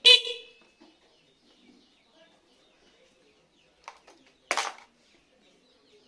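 A newly fitted Rilline disc horn on a Yamaha FZ-S motorcycle gives one short test beep, loud and fading within half a second. About four seconds later come a faint click and a brief clatter.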